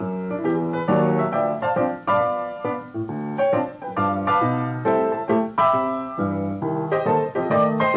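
Piano music: a melody of quick notes over low chords, with no talking over it.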